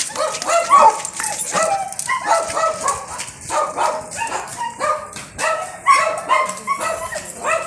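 A dog yipping and barking over and over in short, high-pitched calls, about two a second.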